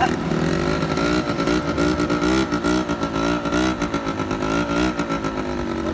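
Small scooter engine running just after a kick-start, with fresh carburettor jets fitted. Its pitch wavers rapidly and regularly up and down, about three times a second, then steadies near the end.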